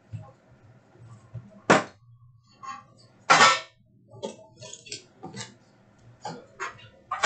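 Metal trading-card tin being opened and emptied by hand: a sharp click, a louder, longer clatter about three and a half seconds in, then several lighter clicks and rustles as the foil card packs come out.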